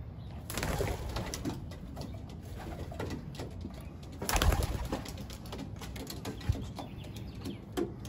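Racing pigeons cooing in the loft, with scattered light clicks and scratches. There are two louder bursts of noise, about half a second in and a little past halfway.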